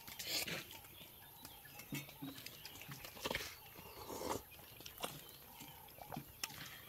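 A man eating: short slurps and mouth sounds as he sips broth from a metal bowl, in a handful of brief, scattered bursts.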